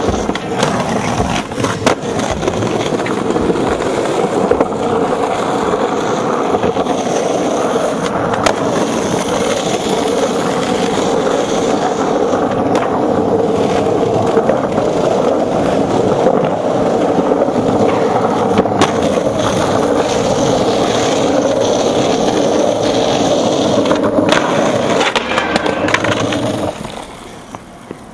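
Skateboard wheels rolling on rough pavement, a steady grinding roll with sharp knocks of the board every few seconds. The rolling cuts off abruptly near the end.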